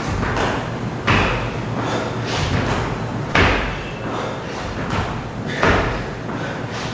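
Sledgehammer striking heavily three times, roughly every two seconds, as in a tabata sledgehammer workout.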